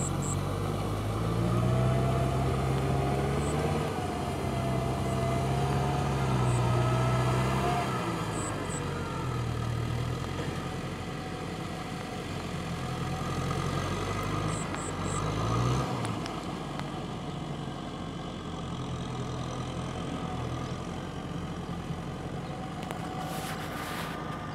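Kubota M6040 SU tractor's diesel engine running under load as it cultivates a flooded rice paddy, its pitch shifting up and down as the load changes. A few clusters of brief high ticks come and go.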